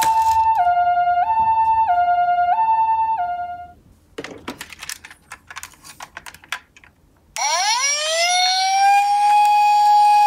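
Toy ambulance minicar's electronic two-tone siren, the Japanese 'pee-po' pattern, stepping high and low about every two thirds of a second for nearly four seconds. Then a few seconds of light clicking and rattling, and about seven seconds in a second siren sound that rises in a wail and holds a steady tone.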